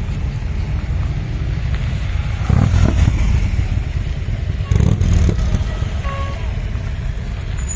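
Motorcycles and trikes riding slowly past one after another, their engines running at low revs. The engines swell louder twice, about two and a half and five seconds in, as bikes pass close.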